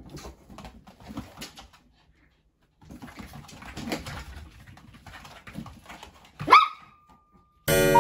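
Faint scuffling and clicks of a toy poodle playing with a balloon on a kitchen floor mat, then about six and a half seconds in a single sharp dog yelp that rises in pitch and trails into a held tone. A chiming jingle starts near the end.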